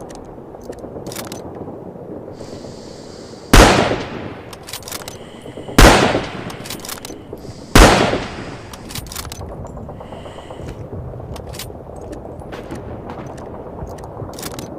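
Lee Enfield No.4 Mk1 .303 bolt-action rifle fired three times, about two seconds apart, each shot a sharp crack with a short echoing tail.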